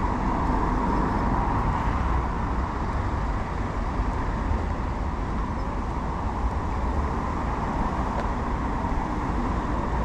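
Steady motor vehicle noise: engines running with road traffic, an even rumble with a faint steady hum.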